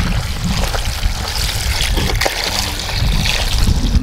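Water poured in a steady stream onto a basin of ice cubes, splashing and trickling down among the ice.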